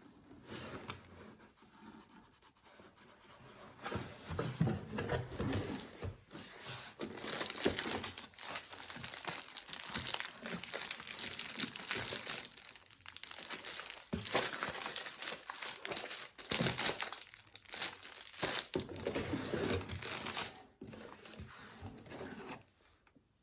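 Packaging being crinkled, handled and torn open by hand, with irregular crackling and rustling that grows louder a few seconds in and eases off near the end.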